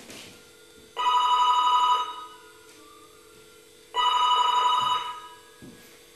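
Telephone ringing twice, each electronic ring about a second long, the two about three seconds apart.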